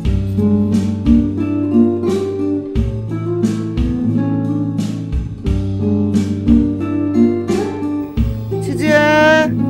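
Background music of acoustic guitars over a steady beat. Near the end a single drawn-out, wavering cat meow rises over it.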